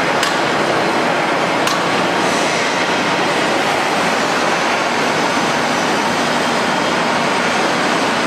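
Steady, loud machinery noise of an ERW welded-pipe mill production line running, with two sharp metallic clinks in the first two seconds.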